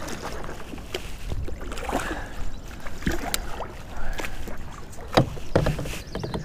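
A hooked fish splashing and thrashing at the surface beside a plastic kayak, with irregular knocks and clatter against the hull, the sharpest about five seconds in.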